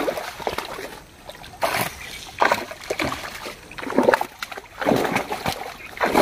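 Fish thrashing in a net in shallow water, splashing in irregular bursts about a second apart.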